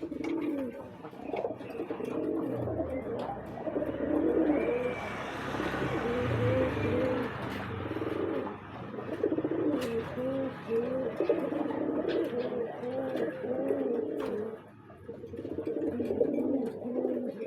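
Domestic pigeons cooing, several birds overlapping in a continuous run of low, repeated coos, with a few sharp clicks.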